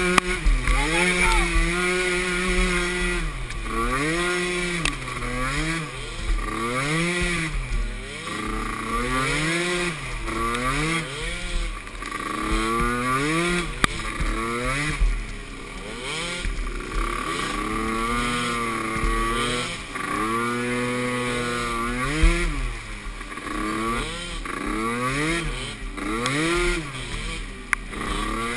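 Small youth ATV engine revving up and falling back over and over as the throttle is worked on and off, its pitch climbing and dropping about every second or two, with a low rumble underneath.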